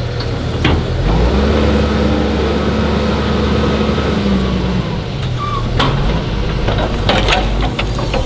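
Doosan excavator's engine running, its pitch stepping up about a second in, holding, then dropping back about five seconds in, with a few knocks near the end.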